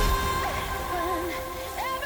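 Background pop music: a heavy bass section cuts off at the start, leaving lighter music with a gliding vocal line.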